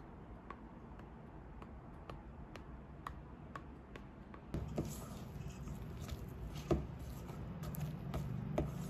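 Faint, regular ticking about twice a second. About halfway through, a rubber spatula starts stirring and scraping a thick pie filling in a stainless steel mixing bowl, with a few light knocks, the loudest about two-thirds of the way in.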